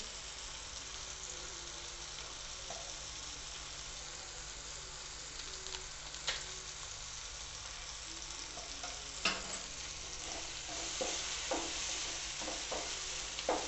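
Chopped onions, tomatoes and green chillies sizzling gently in a frying pan, a steady hiss with a few sharp clicks, the strongest a little past the middle. In the last few seconds a wooden spatula stirs the pan, tapping and scraping through the vegetables.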